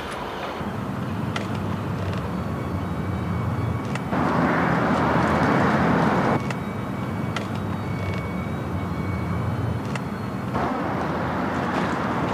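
Outdoor traffic ambience: a steady low engine-like hum, with a louder rushing noise that comes in about four seconds in for a couple of seconds and again near the end.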